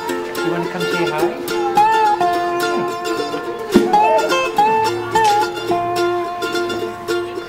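Background music: a light plucked-string melody over steady held notes.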